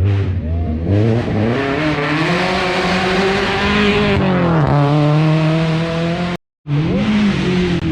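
Rally car engine accelerating hard, revs climbing for a few seconds, then dropping briefly about halfway before running on at steadier revs. Near the end the sound cuts out for a split second and another car's engine follows.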